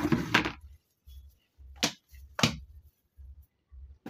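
A brief rustling scrape, then two sharp knocks about half a second apart.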